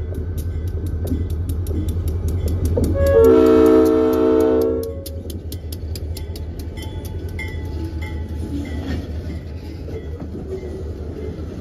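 A diesel locomotive's Leslie RS-5T five-chime air horn sounds one loud blast about three seconds in, over the low drone of the locomotive's engine as it passes close. Then the freight cars roll by with a steady clicking.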